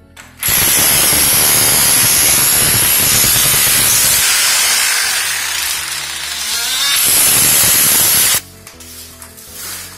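Corded rotary hammer with a flat chisel bit, hammering rapidly as it chisels up glued-down wood floorboards. It runs for about eight seconds with a high whine on top, eases briefly in the middle and cuts off suddenly.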